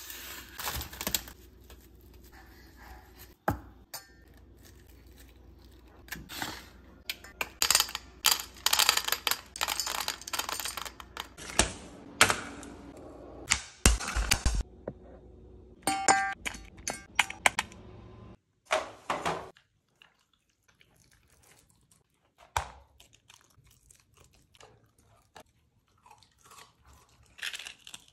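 Kitchen food-prep sounds: a tray of plastic-wrapped ground beef being handled, then a knife chopping carrots on a cutting board in a run of sharp knocks. Near the end a dog starts eating raw food from a stainless steel bowl.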